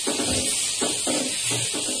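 A pot of water with pine needles boiling, a steady hiss, under background music with a regular beat.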